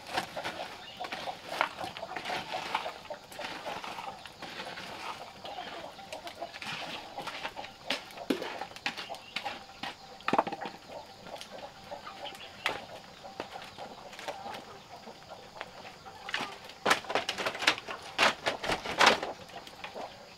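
Chickens clucking, with a scatter of short sharp knocks and clicks that come thickest and loudest near the end.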